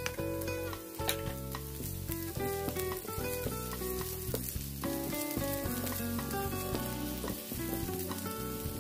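Minced garlic and diced onion sizzling in a tablespoon of hot oil in a nonstick frying pan, stirred and scraped with a silicone spatula. A background melody plays underneath.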